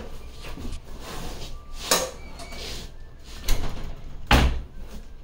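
A few scattered knocks, with a heavier bang about four seconds in.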